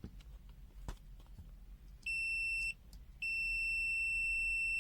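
Multimeter continuity beeper giving a steady high-pitched beep: a short one about two seconds in, then a longer one from about three seconds on. The beep signals that the resistance across the probes is below the meter's threshold of about 50 ohms.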